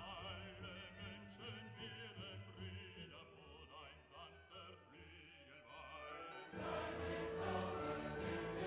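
Background music with a wavering singing voice. About six and a half seconds in it turns suddenly louder and fuller, with a held low note.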